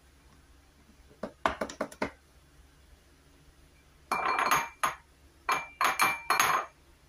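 Kitchen utensils and the plastic parts of a mini food chopper clinking and clattering. There is a quick run of clicks about a second and a half in, then two longer spells of clatter from about four seconds on.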